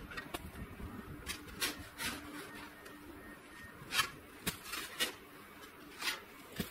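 Snow shovel cutting into packed roof snow: a series of short crunching scrapes, about nine in all, as snow is dug and thrown, the loudest about four seconds in.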